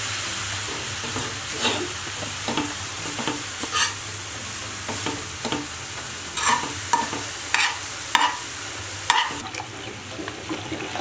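Grated carrots sizzling in a kadhai while a steel spoon stirs them, scraping against the pan about once or twice a second. The carrots are cooking down in the water they have released.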